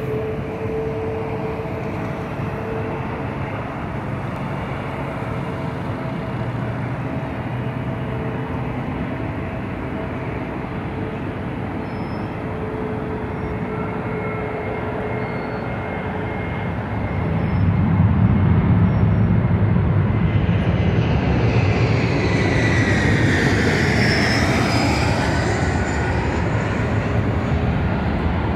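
China Southern jet airliner passing low overhead on landing approach. A steady traffic hum gives way about two-thirds of the way in to a loud jet-engine rumble and a howl that falls in pitch as the aircraft goes by.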